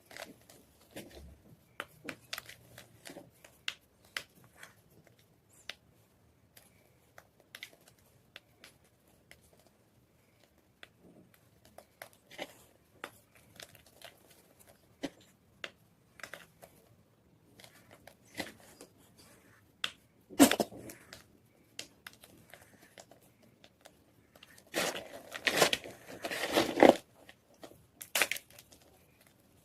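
White gym chalk being crushed: scattered small crackles and snaps, a single sharp crack about twenty seconds in, and a dense run of crunching about twenty-five seconds in that lasts a couple of seconds.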